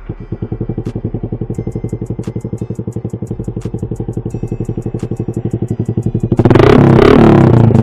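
Suzuki Smash 115's single-cylinder four-stroke engine starting and idling with an even, loud exhaust beat through an M45 aftermarket pipe with its dB killer removed. It is revved briefly about six seconds in.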